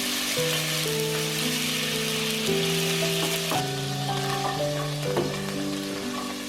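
Food sizzling as it fries in a pan, louder in the first half and dropping off a little after about three and a half seconds, with a few light clicks. Slow background music with sustained notes plays over it.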